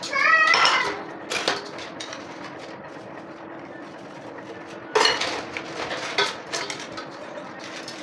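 Dishes being washed by hand in a stainless steel bowl: a sponge scrubbing, and dishes and cutlery clinking against the steel, with a louder clatter about five seconds in. A short high wavering cry or voice sounds at the very start.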